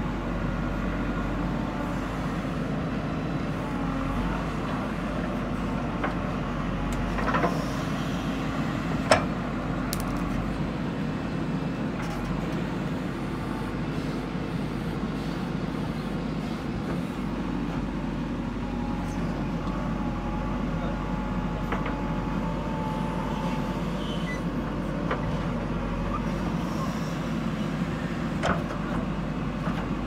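JCB 3DX backhoe loader's diesel engine running steadily under load as the backhoe digs, with a few sharp knocks, the loudest about nine seconds in.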